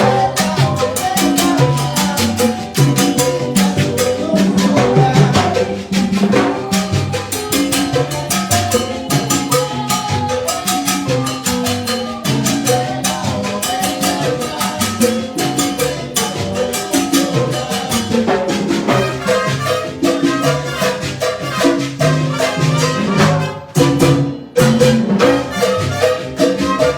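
Live tropical band playing a tune during its sound check: brass, drums and percussion over a steady dance beat, with a brief break about 24 seconds in.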